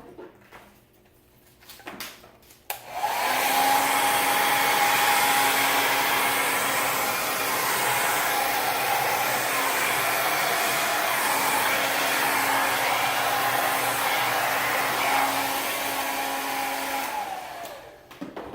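Handheld hair dryer switched on about three seconds in, blowing steadily with a whine under the rush of air, then winding down and off near the end.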